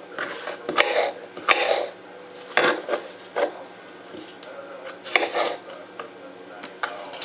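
Kitchen knife slicing through apples and knocking on a cutting board: an uneven series of short knocks, a second or so apart.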